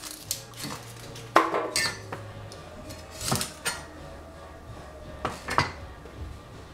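Kitchen utensils and dishes clinking and knocking: several sharp, irregular knocks, some with a short metallic ring, over a faint steady low hum.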